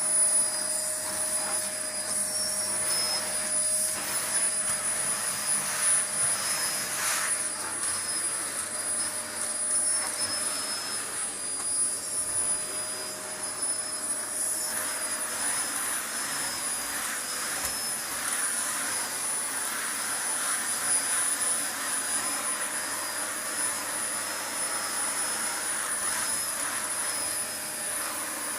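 Vacuum cleaner running steadily: a rushing of air with a constant high-pitched motor whine.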